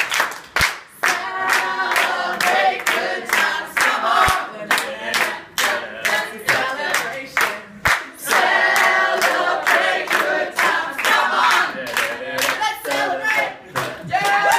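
A small group of people singing together while clapping along in a steady beat, about two to three claps a second.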